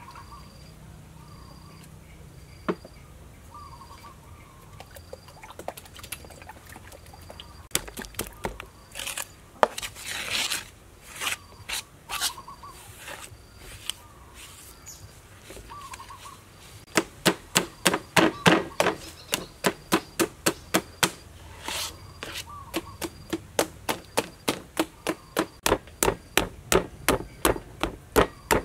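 A spoon beating a batter of flour, egg and water in a metal bowl. It is soft stirring at first, then from about halfway a steady run of sharp clacks, roughly three a second, as the spoon strikes the side of the bowl.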